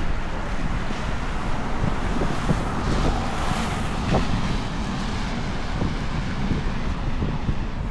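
Wind rumbling on the microphone over city street traffic, with a vehicle passing about three seconds in.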